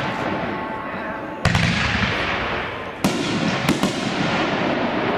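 Aerial fireworks bursting overhead: a heavy boom about a second and a half in, then a sharp bang about three seconds in and two quick cracks just before four seconds.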